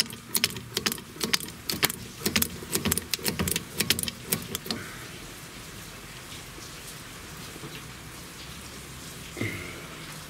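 A jack being worked to lift a car's rear axle beam: quick, irregular metallic clicks for about the first five seconds, then only a low steady hiss with one faint knock near the end.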